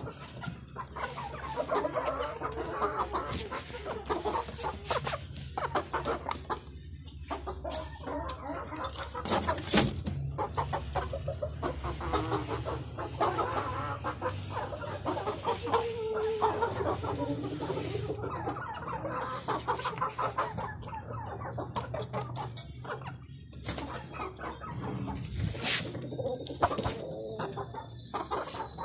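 A flock of Aseel chickens clucking and calling continuously, several birds at once, with a few sharp knocks, the loudest about ten seconds in.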